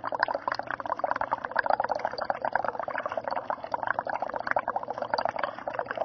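Breath blown into a solution of universal indicator, bubbling rapidly and steadily. The exhaled carbon dioxide dissolves to form carbonic acid, turning the indicator toward acid.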